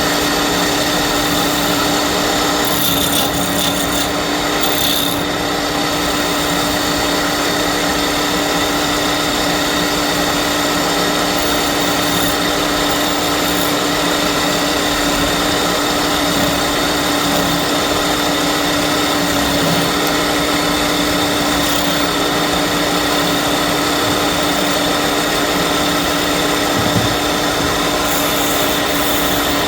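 Electric wood lathe running steadily with an even motor hum, while a tool scrapes against the spinning wood.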